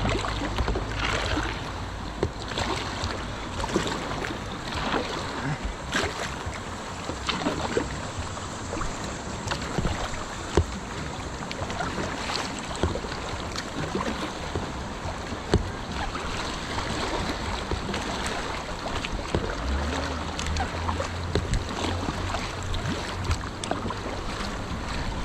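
River water rushing and splashing around a whitewater kayak, with many irregular sharp splashes. Wind rumbles on the microphone at the start and again about 20 seconds in.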